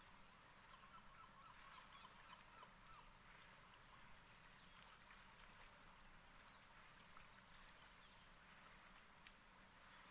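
Near silence: faint outdoor ambience with faint, distant short animal calls, mostly in a cluster between about one and three seconds in.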